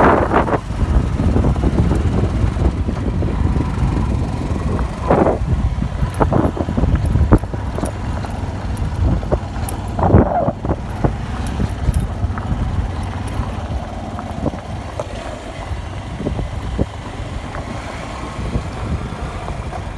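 Wind buffeting the microphone: a loud, uneven low rumble that swells and drops in gusts, with stronger blasts about five and ten seconds in.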